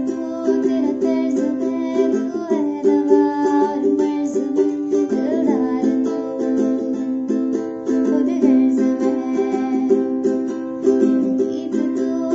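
A young woman singing softly to her own ukulele, which plays steady strummed chords under a few gliding sung notes.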